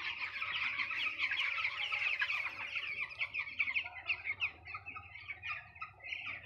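A flock of chickens calling all at once, a dense chatter of short high-pitched calls that thins out a little about halfway through, over a faint steady hum.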